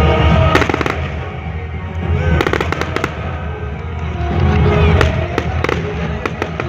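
Aerial fireworks bursting: deep booms with rapid crackling, the crackles coming in dense clusters from about two seconds in.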